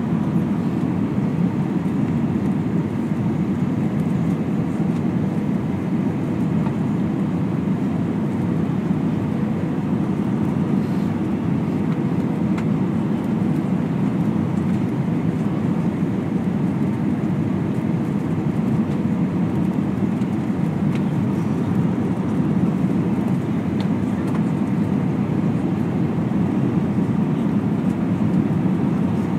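Steady cabin noise inside an Airbus A320: a constant low rush of airflow and engine noise with a faint steady whine, without bumps or changes.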